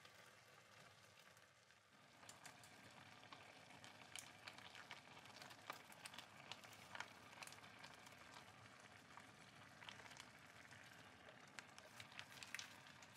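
Faint steady hiss, then from about two seconds in irregular crackling as yogurt-marinated chicken drumettes are tipped from a zip-top plastic bag into a pot of simmering onion and tomato.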